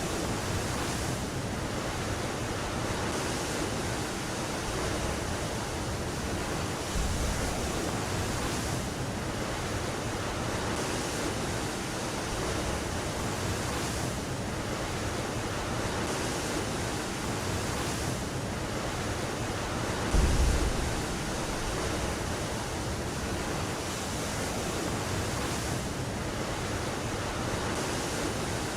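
A steady rush of sea and wind, swelling softly about every two seconds, with one low thud about two-thirds of the way through.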